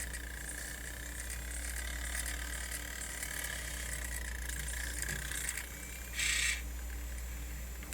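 Sony MZ-N420D MiniDisc player's disc drive running with a steady high whine as it struggles and fails to spin the disc properly. A short louder burst of noise about six seconds in.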